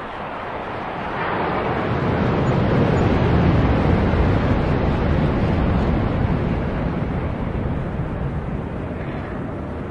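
Aircraft flying past at an air show: a broad engine rumble that builds about a second in, peaks a few seconds later and slowly fades as it recedes.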